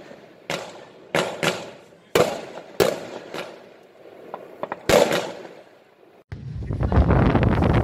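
Aerial firework shells bursting: about eight sharp bangs over five seconds, each trailing off in an echo. About six seconds in the sound switches abruptly to a steady rumbling noise dense with rapid crackles.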